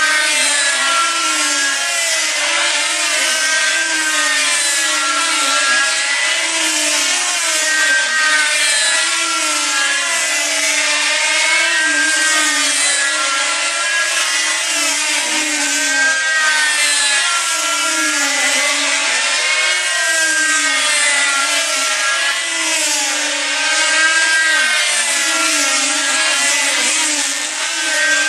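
Five control-line combat model planes with small diesel engines running together, several engine tones layered into one continuous buzz. Each engine's pitch wavers up and down about every two seconds as the models lap the circle.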